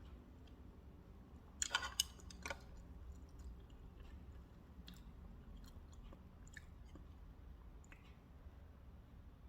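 Close-miked mouth sounds of a person chewing food, with a cluster of sharp clicks and crunches about one and a half to two and a half seconds in, then fainter scattered clicks over a low steady hum.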